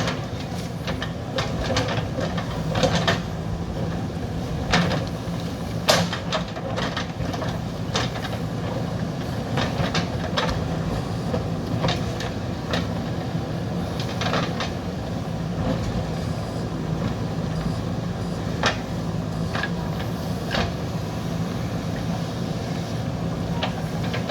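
JCB backhoe loader's diesel engine running steadily while it digs, with frequent sharp knocks and clanks.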